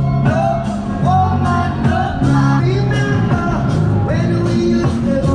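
Music: a song with singing over a steady beat.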